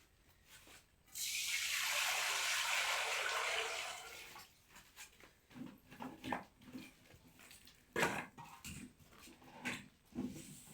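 Water pouring or gushing for about three seconds, then tapering off, followed by scattered light knocks and clatter.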